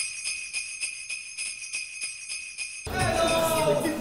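Jingle bells shaken in a steady rhythm, about three or four shakes a second, as an intro sting. They cut off abruptly about three seconds in, giving way to a voice.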